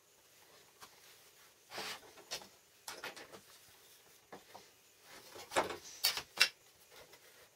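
A series of short scrapes and knocks of objects being handled, about seven in all, the loudest and sharpest clustered around six seconds in.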